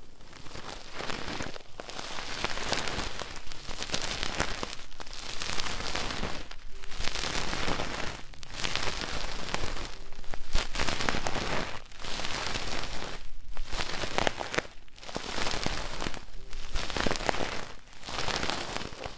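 Ear-cleaning ASMR on the silicone ear of a binaural microphone: a thin ear-cleaning stick and fingers scratching and rubbing inside the ear, a loud crackling rasp in strokes of a second or two with brief pauses between them.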